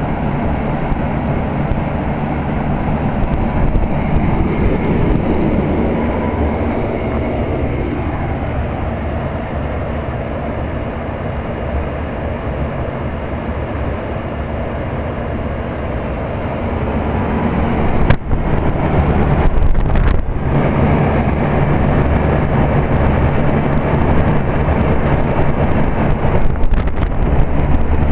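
Circa-1973 General Electric central air-conditioner condensing unit running: a steady compressor hum under the rushing air of the condenser fan. Two brief dropouts come about two-thirds of the way through, after which the low hum is louder.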